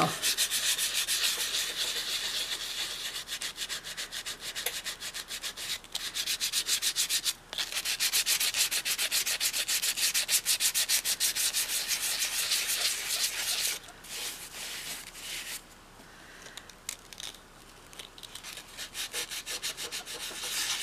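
Hand sanding of a doll's head with quick back-and-forth rubbing strokes, several a second. The strokes pause briefly twice, then turn lighter and sparser about two-thirds of the way through, nearly stop, and pick up faintly near the end.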